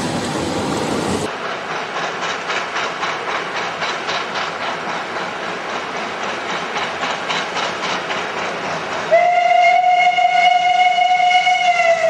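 Narrow-gauge steam locomotive working a train, its exhaust beats coming steadily. About nine seconds in it sounds its whistle in one long blast that sags slightly in pitch near the end. The first second is carriage running noise heard from on board.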